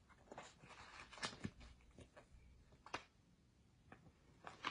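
Near silence with a few faint rustles and light taps as a picture book is opened and its pages handled.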